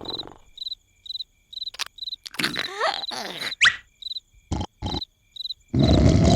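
Cartoon night-time cricket chirping, a short high chirp about twice a second over near quiet, with a few clicks and gliding squeaks in the middle. About six seconds in, a loud cartoon snore starts.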